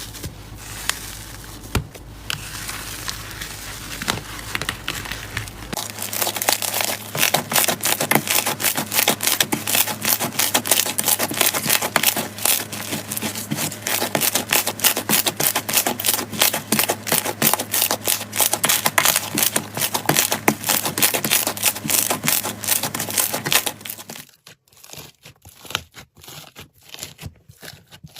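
Crunchy slime being squeezed and pressed, giving a dense run of rapid crackling and crunching pops. The crackling eases to a few scattered clicks near the end.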